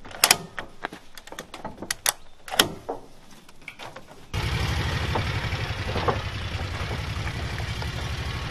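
A few sharp clicks and knocks, then about four seconds in a vehicle engine comes in abruptly and runs steadily with an even low throb.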